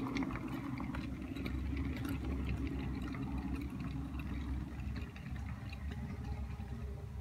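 OO gauge model pannier tank locomotive hauling goods wagons along the track: a steady low motor and wheel rumble with many small clicks from the wheels over the rail joints, easing off as the train moves away.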